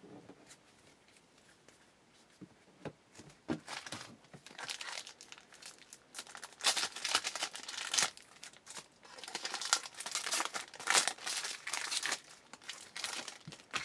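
Wrapper of a baseball card pack being torn open and crinkled by hand: a few light clicks, then a long run of crinkling from about four seconds in.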